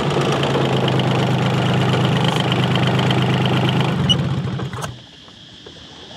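A fishing boat's engine running steadily, then cutting off abruptly near the end.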